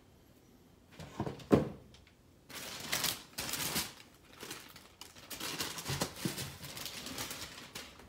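Tissue paper and a plastic zip bag rustling and crinkling as they are handled in a shoebox, with a couple of thumps about a second and a half in.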